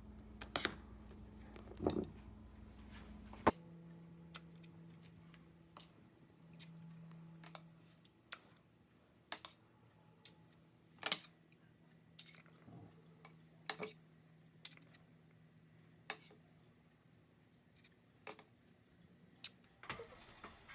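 Scattered light clicks and taps of kitchen utensils, irregular, every half second to a second or so, over a faint steady low hum.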